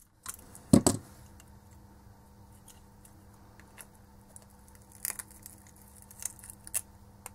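Side cutters set down on the table with a thump about a second in, then a few small scraping clicks as a screwdriver tip picks glue and glass shards off an LED lamp's base.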